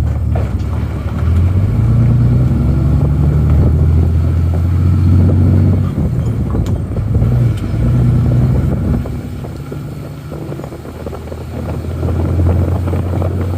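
Skid steer's diesel engine working under load, its revs rising and falling several times, easing off for a few seconds in the second half and then picking up again near the end.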